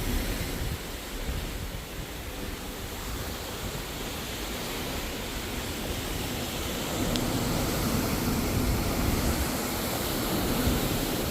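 Ocean water rushing steadily along a cruise ship's hull, with low wind rumble on the microphone; the rush swells a little in the second half.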